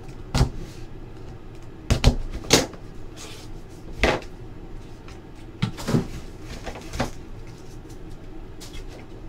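A cardboard trading-card hobby box being cut open and handled on a tabletop: irregular sharp knocks and clacks, about ten over the stretch, with softer scraping between them.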